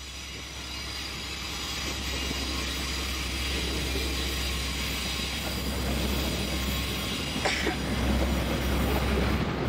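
DL class diesel-electric locomotive hauling a freight train past, its engine rumble and the rolling of wheels on rail growing louder as it approaches. A brief sharp noise comes about seven and a half seconds in.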